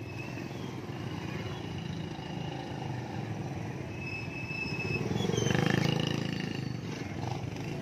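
Motorbike and scooter engines running close by in street traffic, one passing louder about five seconds in.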